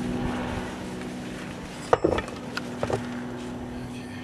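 A sharp knock about two seconds in, then a couple of lighter knocks, over a steady low hum.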